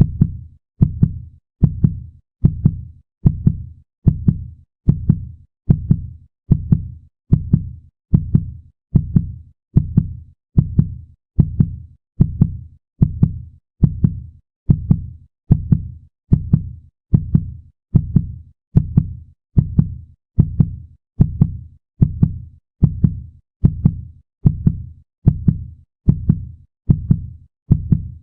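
Heartbeat sound effect: a steady, even train of low lub-dub double thuds, a little more than one beat a second, going on without a break.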